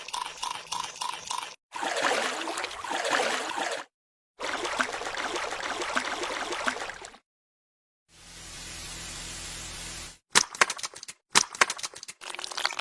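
A run of separate cartoon sound effects cut apart by dead silence: rapid clicking, stretches of water splashing and pouring, a steady hiss, then a cluster of sharp cracks near the end.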